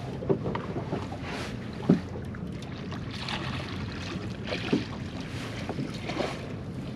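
Boat under way at trolling speed: a steady low engine hum, with waves swishing against the hull every second or two and wind on the microphone. A few sharp knocks, the loudest about two seconds in.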